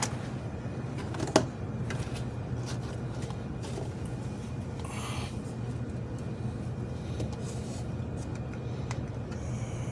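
Soldering gun humming steadily while wire is soldered to a terminal, with a sharp click about a second and a half in.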